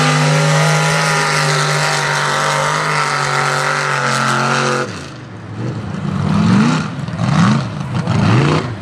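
Chevy mega truck's engine held at steady high revs, then letting off abruptly about five seconds in and revving up and down repeatedly, about once a second, as it works through deep mud.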